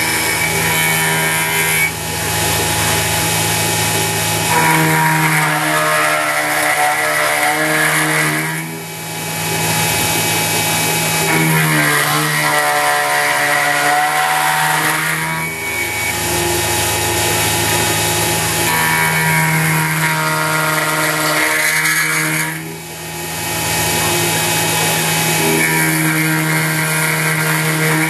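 CNC X2 mini mill end-milling an angle into 6061 aluminum: the spindle hums steadily under a cutting chatter, while the axis drive motors whine up and down in pitch as the table makes repeated feed passes, about one every seven seconds.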